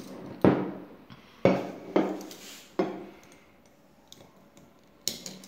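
Thick glass beer mug clunking against a hard tabletop, four knocks in under three seconds, each with a short ring. Then faint clicks of a small metal tool against the glass.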